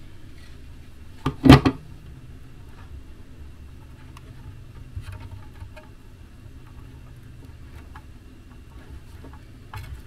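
Small clicks and rustles of hands working electrical wires into a plastic wall power point, with one short, loud clatter of hard knocks about a second and a half in.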